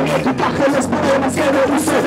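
Band music: a wavering melody line over a steady bass, with repeated drum hits.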